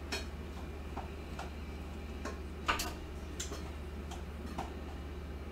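A spoon clicking and scraping against a copper-coloured saucepan as green peas are scooped out: several irregular light clicks, the loudest about two and a half seconds in, over a low steady hum.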